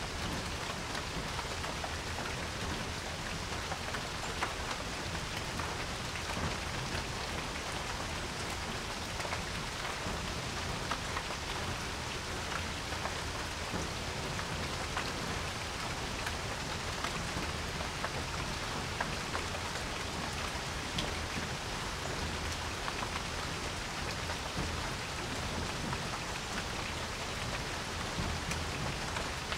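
Steady rain falling on a porch, a constant patter with many separate drops tapping close by.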